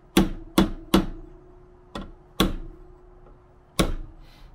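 Ball-peen hammer striking a brass drift to tap a wheel bearing's outer seal into a Toyota 4Runner front steering knuckle: six sharp metallic taps, three in quick succession and then three spaced out, with a faint ringing tone between them. The taps sound solid, the sign that the seal is driven to its fully seated position.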